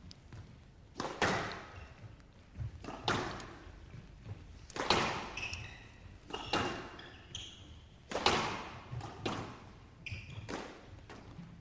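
Squash ball being struck back and forth in a rally: sharp racket hits and ball thuds off the court walls about every one and a half to two seconds, each echoing in the hall, with a few short high squeaks in between.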